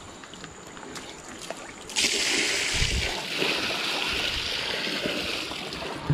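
Water splashing and gushing onto the ground as it is sluiced over muddy stone steps to rinse them. It starts suddenly about two seconds in, runs for about four seconds, and ends with a thump.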